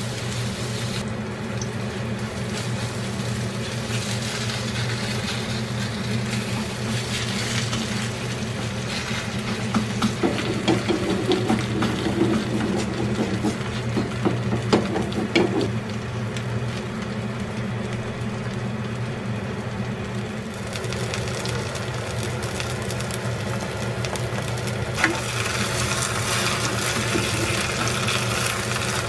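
Vegetable-and-shrimp pancake batter frying in a pan, with a wooden spatula scraping and knocking against the pan, busiest in a run of knocks a little before the middle, over a steady low hum.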